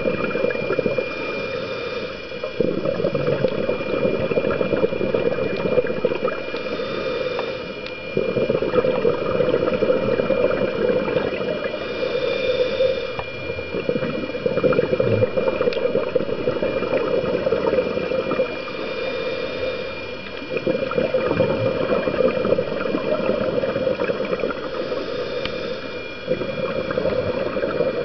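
Scuba diver breathing through a regulator underwater: long spells of bubbling, gurgling exhalation alternate with a short hiss of inhalation about every six seconds. A faint steady high whine runs underneath.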